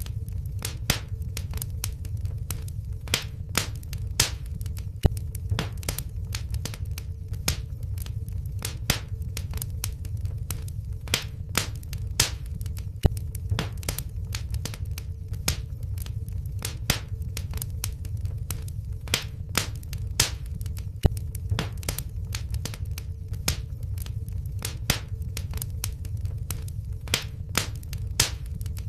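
Wood fire in a fireplace crackling, with irregular sharp pops and snaps several times a second over a steady low rumble of the flames.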